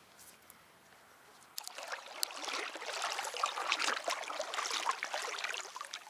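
Someone wading through shallow marsh water and grass, a continuous splashing and swishing with many small clicks, starting about one and a half seconds in.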